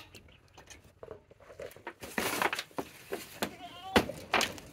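Goat in labour shifting on a slatted pen floor: rustling and several sharp knocks of hooves on the boards and metal sheeting from about two seconds in, with a short faint bleat near the end.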